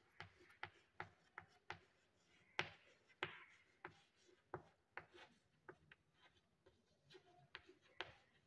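Chalk on a chalkboard as a sentence is written by hand: faint, irregular short taps and scratches of the chalk strokes.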